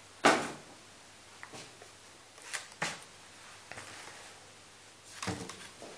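Packaging being handled as a graphics card is lifted out of its foam insert in a cardboard box. A sharp rustle and scrape comes just after the start, a few light clicks and taps follow, and another burst of rustling handling comes near the end.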